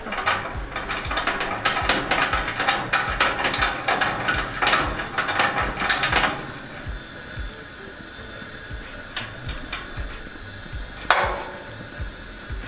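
Coleman dual-fuel camping stove's fuel-tank hand pump being stroked quickly, giving rapid mechanical clicking and rattling for about six seconds. A single sharp pop comes about eleven seconds in, as a burner lights.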